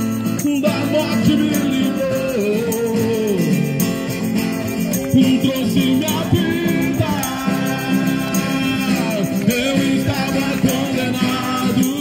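A Christian worship song playing: a singing voice carries a gliding melody over a band with a steady beat of light shaken percussion.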